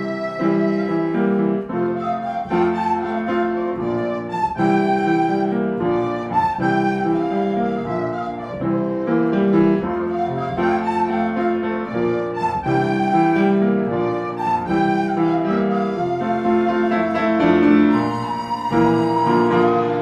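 Instrumental background music: a steady run of held notes under a melody line, with no speech.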